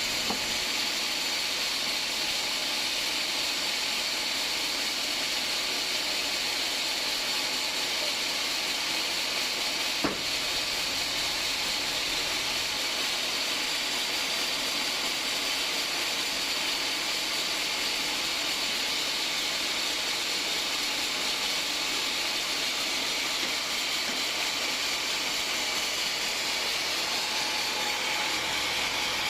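Band sawmill's blade running steadily through a hard acacia log, a constant high hiss, with a single sharp click about ten seconds in.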